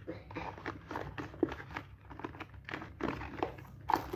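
Cardboard and paper-card packaging of a Xiaomi Redmi Note 5 retail box being handled: irregular rustling, scraping and small knocks as the lid and inner tray are moved. The sharpest knock comes near the end.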